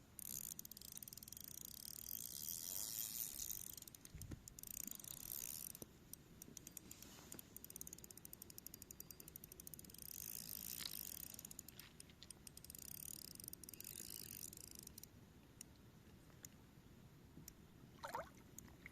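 Spinning reel being cranked, its gears clicking rapidly in long runs with short pauses, faint, easing off after about fifteen seconds.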